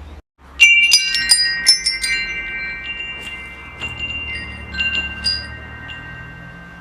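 Wind chimes struck by the breeze. After a split-second gap, a cluster of bright strikes comes about half a second in. Scattered further strikes follow over several long ringing tones that slowly fade.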